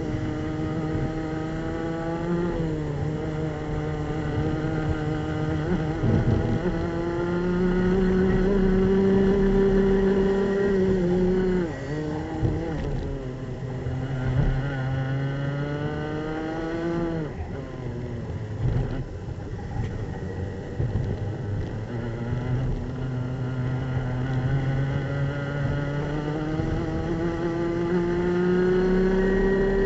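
Racing kart's two-stroke engine at full throttle, heard onboard. Its pitch climbs along the straights and drops sharply twice as the driver brakes for corners. It runs lowest through a slow section in the middle, then makes a long steady climb in revs near the end.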